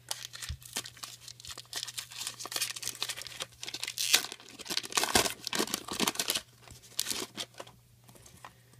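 Foil wrapper of a trading-card pack being torn open and crinkled in the hands: dense crackling that thins out over the last couple of seconds.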